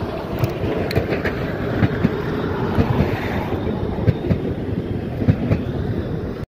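Narrow-gauge diesel locomotive and its short train of wagons running past close by, the engine running under a string of wheel clicks over the rail joints.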